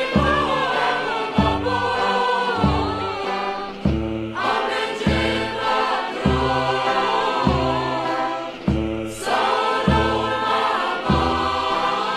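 Music: a choir singing a slow Romani song, its wavering melody carried over low bass notes struck about every second and a quarter.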